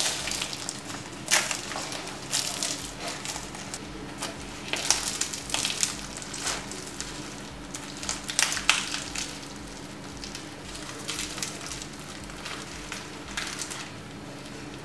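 A crisp, flaky layered pastry (saya çöreği) being torn apart by hand, its crust crackling and crunching in irregular bursts as the layers break and flake off.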